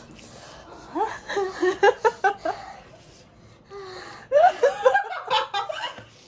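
A woman laughing in two bouts, one about a second in and another from about four seconds.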